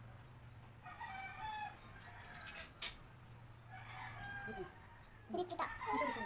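Rooster crowing twice, each crow a held high call of under a second. Between the crows comes a single sharp click, and near the end more broken calls follow.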